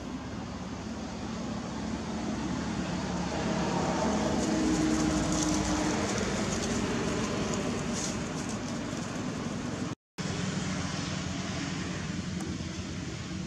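Steady outdoor background noise with a low hum, swelling louder in the middle, with a brief cut-out about ten seconds in.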